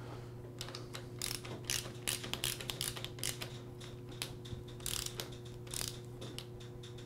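Small torque wrench ratcheting in runs of quick, irregular clicks as it tightens the fork's lower-leg foot nuts to 50 inch-pounds.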